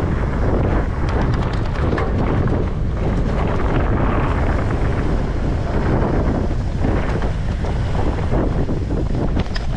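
Wind buffeting the camera's microphone in a steady low rumble, with a run of faint ticks about a second or two in.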